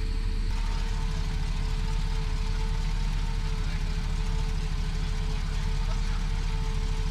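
Boom truck's engine idling steadily.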